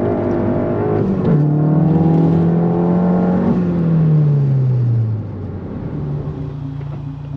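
Car engine and aftermarket exhaust under hard acceleration: the revs climb, drop at an upshift about a second in, climb again, then fall away from about three and a half seconds in and settle to a steady, quieter lower note.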